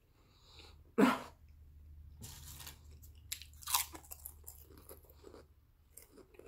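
Close-miked chewing and crunching of potato chips. A sharp crunch about a second in is followed by softer chewing and a few more crisp crackles.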